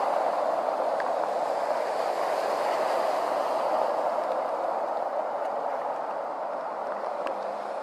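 Cars driving through deep floodwater on a road, their tyres throwing up a steady rushing spray of water that eases off gradually toward the end.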